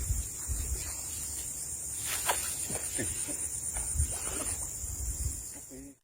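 A steady, high-pitched insect chorus buzzing with an even pulse, with light rustling and knocks close by.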